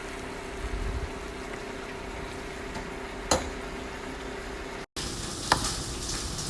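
Stir-fried udon sizzling in a hot pan: a steady frying hiss over a low hum, with one sharp click about three seconds in.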